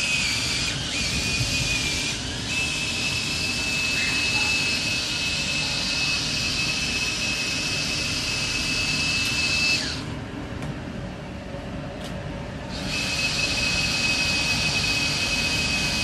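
Air-duct cleaning tool running inside a ceiling vent: a steady high whine with hiss, over a continuous low rumble. About ten seconds in, the whine and hiss cut out for roughly three seconds, then come back.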